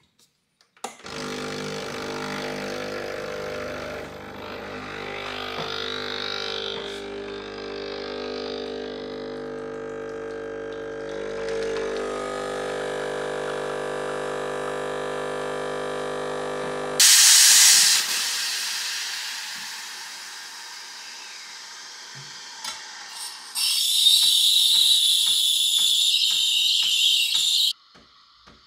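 A steady machine hum for about sixteen seconds, then a sudden loud hiss that fades away. A few seconds later comes a second, high-pitched hiss that cuts off abruptly near the end.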